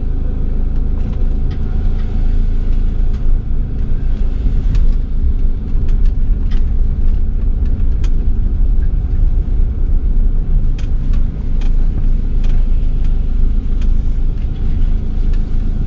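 Motorhome driving slowly with its engine running, a steady low rumble with scattered light clicks.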